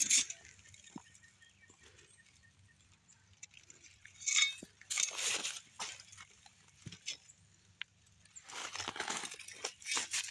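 Dry straw mulch and cucumber leaves rustling and crunching in scattered bursts as someone moves through the vines. A brief high-pitched call sounds about four seconds in.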